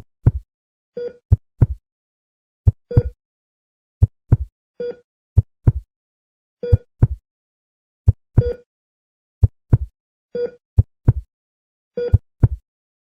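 Heartbeat sound effect: pairs of deep lub-dub thumps repeating slowly and evenly, about once every 1.3 seconds. A short, higher tone recurs between them at its own slightly slower pace.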